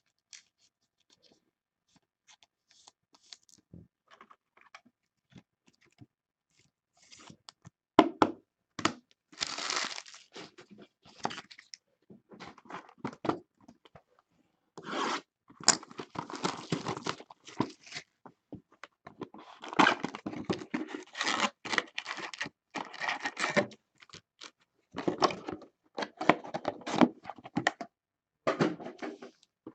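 Topps Tribute baseball card box and its wrapped packs being opened by hand. Faint handling at first, then from about eight seconds in a sharp click and repeated bursts of tearing and crinkling wrapper.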